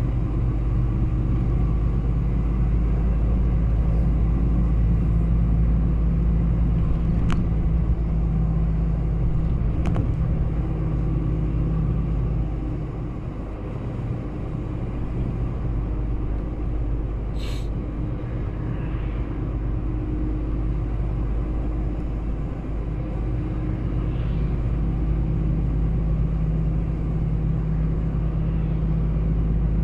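Heavy truck's diesel engine droning steadily under load on a long uphill climb, heard from inside the cab. Around the middle it eases and drops in level for a few seconds, then picks up again.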